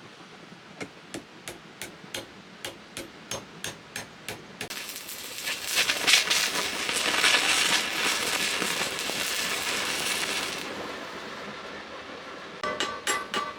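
Hammer tapping on steel, about three light strikes a second, then several seconds of loud crackling hiss from metalwork on the handle. Ringing hammer strikes start again near the end.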